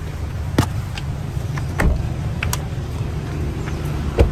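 Car engine running with a steady low rumble while people climb out of the car, with a few clicks and knocks and a car door thumping shut about four seconds in.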